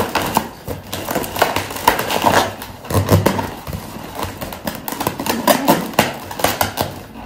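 Hands handling inflated clear latex balloons while tucking a small plastic light unit in among them: irregular rubbing and handling noise with many scattered short clicks.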